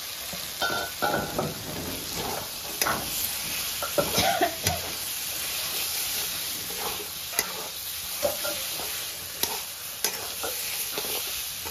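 Potatoes sizzling as they fry in spice paste in a pan, stirred with a spatula that scrapes and knocks against the pan every second or so.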